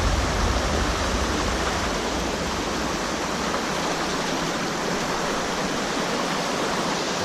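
Steady rush of a mountain stream's flowing water, an even noise that holds without a break.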